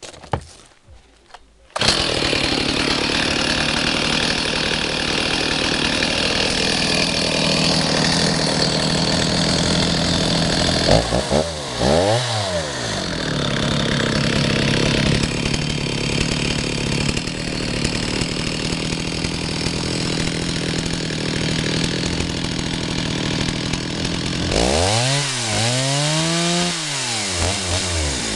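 Stihl 039 two-stroke chainsaw engine bursting into life about two seconds in, then running steadily. The throttle is blipped, revving up and back down, once near the middle and a few times near the end.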